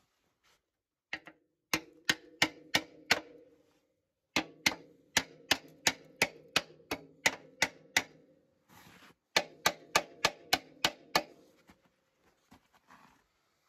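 Chipping hammer knocking slag off fresh welds on a steel pipe welded along a snow plow's cutting edge. It comes as runs of sharp metal strikes, about three a second, each with a short ring from the steel, and stops about eleven seconds in.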